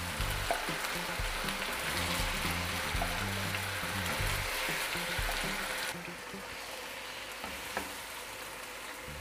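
Chicken and garlic-ginger paste frying in hot oil in a karahi, a steady sizzle that eases a little about six seconds in.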